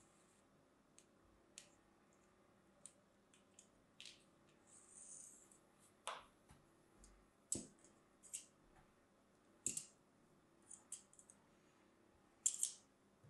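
Scissors cutting and scraping through kinetic sand held in a plastic mould: quiet, scattered snips and clicks of the blades with brief sandy scratches between, the loudest a quick pair of clicks near the end.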